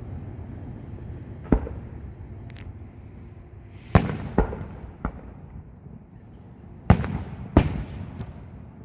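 Fireworks display shells bursting overhead: about six sharp bangs at uneven intervals, each trailing off in a short rumbling echo, the loudest about four seconds in and again near seven seconds.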